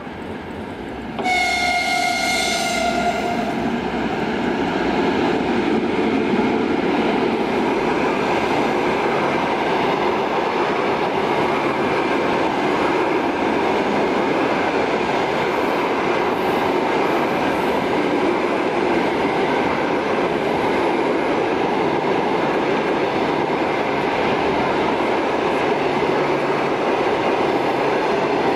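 A 2ES4K electric locomotive sounds its horn once for about two seconds, starting about a second in. Its passenger train then runs past with a steady noise of wheels and coaches on the track.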